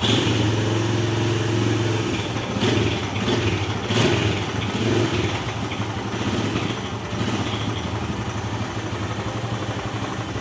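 Honda Tiger Revo's single-cylinder four-stroke engine running, revved unevenly in the first half, then settling to a steadier, slightly quieter idle.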